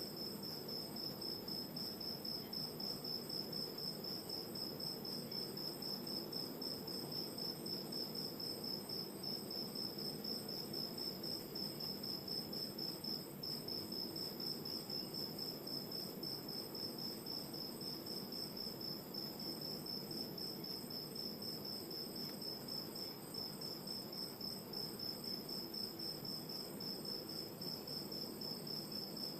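Crickets chirping at night in a steady, rapidly pulsed high trill without a break, over a low, even wash of distant ocean surf.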